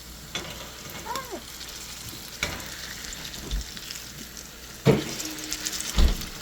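Hush puppy batter frying in hot oil, a steady sizzle, with several sharp knocks against the pan, the loudest about five and six seconds in.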